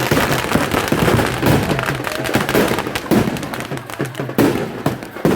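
Firecrackers packed in a burning Ravan effigy going off in a dense, rapid crackle, with louder single bangs every second or so.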